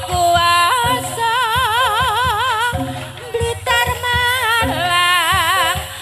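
Live Javanese jaranan music: a wavering melody line with heavy vibrato over a steady pattern of drum strokes.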